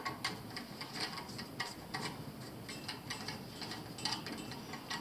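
Irregular small clicks and scrapes of hand work on low-voltage wiring, as a wire is fastened to a terminal on a Honeywell zone valve.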